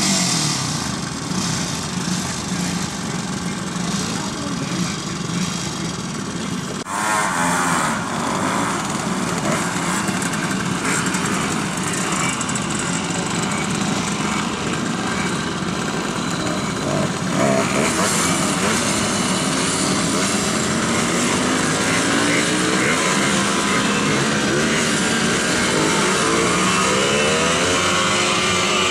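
Several vintage 50cc two-stroke mopeds running together, engines idling and being revved. From partway through, their engine notes rise and fall as the mopeds ride off.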